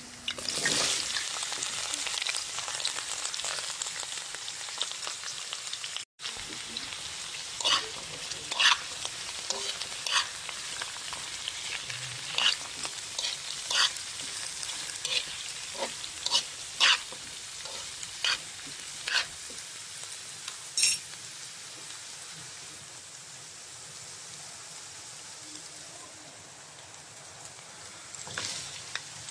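Food frying in hot oil in a wok: sliced onions and chunks of bottle gourd (upo) sizzling with a steady hiss, swelling louder about a second in. While the gourd is stirred, a metal spatula knocks and scrapes against the pan in a run of sharp clicks.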